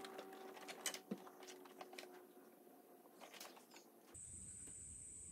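Near silence with scattered faint clicks and taps, two sharper ticks about a second in. About four seconds in, a steady high-pitched whine and a low hum start abruptly.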